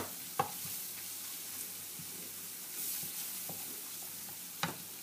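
Chopped onion and garlic with a little flour sizzling gently in oil in a frying pan as a wooden spatula stirs it: the flour being cooked off. Two light knocks of the spatula against the pan, one about half a second in and one near the end.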